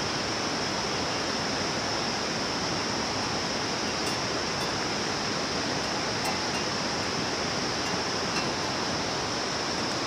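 Steady outdoor ambience: an even rushing noise like flowing water, with a constant high-pitched drone above it and no distinct events.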